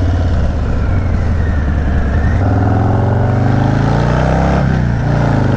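Harley-Davidson V-twin motorcycle engine running on the move. Its note rises in the second half, then dips briefly near the end.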